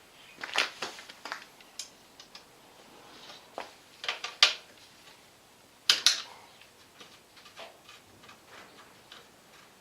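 Irregular clicking knocks from a bicycle's rear sprocket freewheel (boss-free type) as it turns: the knocking noise whose cause the owner could not find. The knocks come in small clusters, the sharpest about six seconds in, with fainter ones after.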